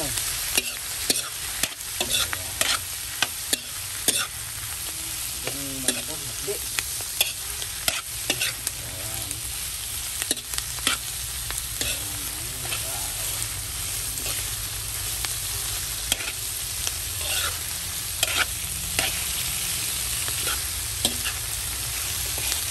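Sliced pork, garlic and onion sizzling in a hot pan as they are sautéed, stirred with a metal spoon that clicks and scrapes against the pan every second or so.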